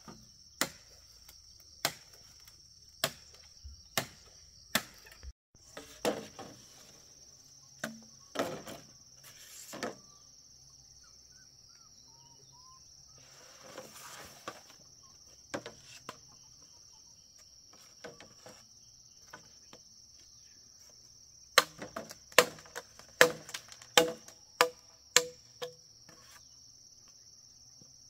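Repeated sharp strikes of a hand tool on wood. They come about once a second at first, scattered in the middle, then quicker, about two a second, near the end, over a steady high-pitched drone of insects.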